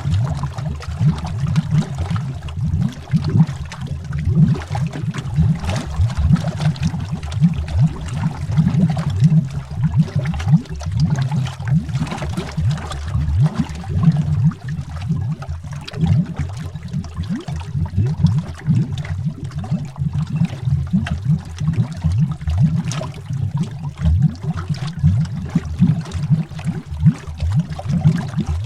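Continuous underwater bubbling: a dense stream of deep, irregular bubble pops and gurgles heard from below the water's surface.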